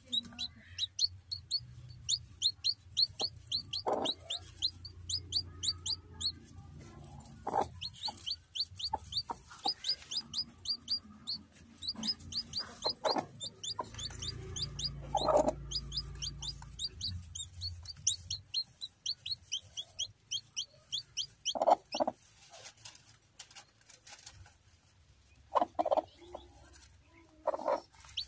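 Newly hatched chicks under a brooding hen peeping almost without pause, quick high falling peeps several a second. The hen breaks in now and then with short, low clucks.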